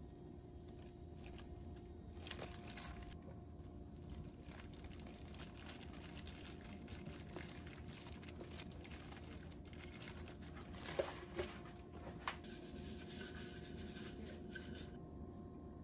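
Plastic food-prep glove crinkling and rustling as a hand tosses sticky seasoned squid strips in a stainless steel bowl, with a few sharper clicks about eleven and twelve seconds in.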